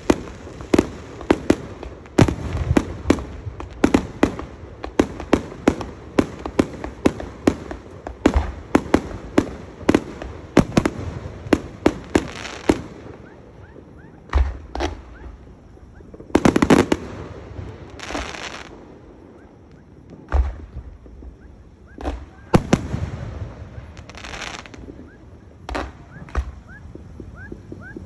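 Aerial fireworks display: a rapid string of sharp bangs, two or three a second, for about the first thirteen seconds, then fewer, more spaced-out bursts, some of them longer and noisier.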